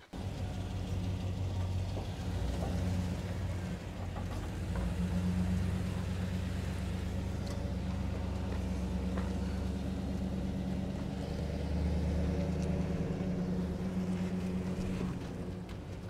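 Engine of a full-size high-roof 4x4 van running steadily under load as it crawls up a steep slickrock slope, with slight swells about five and twelve seconds in.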